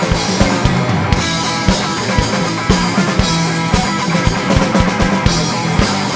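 Live rock band playing an instrumental passage without vocals: amplified electric guitars over a drum kit keeping a steady beat.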